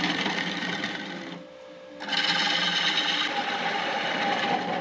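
Bowl gouge cutting into a wooden bowl blank spinning on a wood lathe: a rough, hissing scrape over the running lathe. The cut breaks off for about half a second roughly a second and a half in, then resumes.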